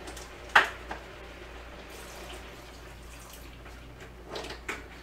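Water being added to a pot of boiling chickpeas, dripping and splashing against a steady watery hiss, with a sharp splash about half a second in and a couple of smaller ones near the end.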